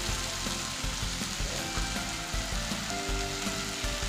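Spiced onion-tomato masala sizzling steadily in a hot pan as boiled potatoes are crumbled into it by hand.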